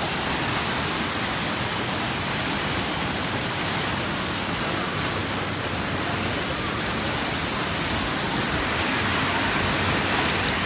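Fountain water jets spraying up and falling back into the pool, a steady rushing hiss of splashing water.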